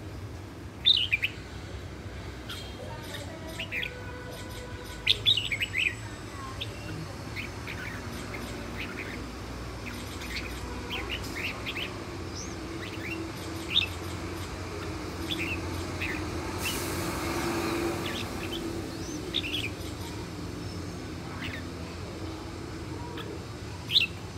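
Red-whiskered bulbul singing: short, sharp chirping phrases in scattered bursts, loudest about a second in, around five seconds in and near the end.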